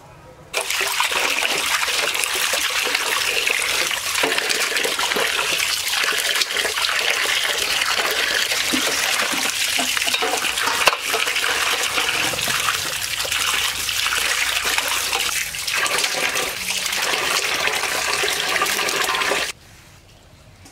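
A stream of water splashing onto raw fish pieces in a stainless steel bowl as a hand rinses them. It starts suddenly about half a second in and cuts off suddenly near the end.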